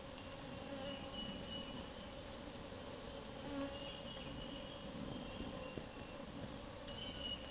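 Honey bees buzzing around an opened hive box, a steady drone; the bees are agitated at being disturbed after a long drive.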